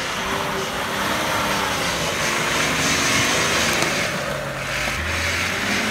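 Off-road Nissan Patrol's engine running as it crawls through mud and brush, its pitch shifting up and down over a steady wash of noise.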